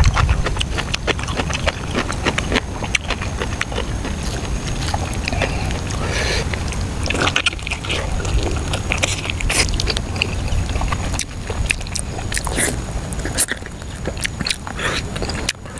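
Close-up eating sounds of soft, gelatinous stewed pork leg: wet chewing and lip-smacking, with many short sticky clicks that come thickest in the second half.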